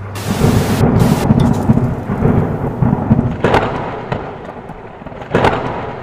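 Thunderstorm sound effect: a loud, low rumble of thunder that slowly fades, with two sharp cracks of lightning about three and a half and five and a half seconds in. A static hiss breaks off in the first second.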